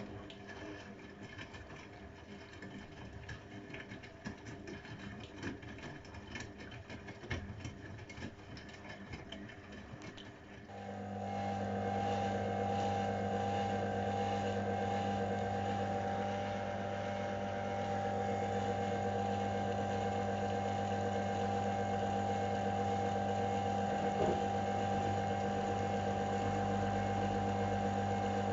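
AEG Öko-Lavamat 693 washing machine running a 95 °C boil wash: an irregular churning rumble with scattered clicks, then about eleven seconds in a motor starts with a steady hum that holds.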